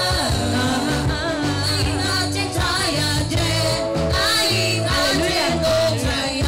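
A young woman singing a gospel song into a microphone, her voice wavering in pitch, over instrumental accompaniment with a bass line.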